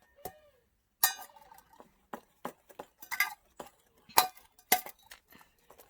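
Irregular clinks and taps of a utensil against a mixing bowl: about a dozen short, sharp knocks, some with a brief ring.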